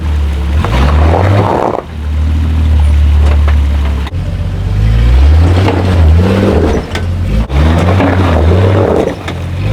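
An off-road 4x4's engine revving and easing off again and again, its pitch stepping up and down, with two stretches of harsh rushing noise over it.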